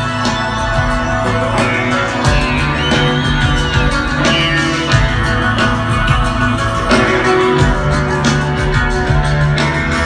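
Live rock band playing, heard from the crowd: sustained bass notes, electric guitars and drums, with a high note that glides up and back down a couple of seconds in.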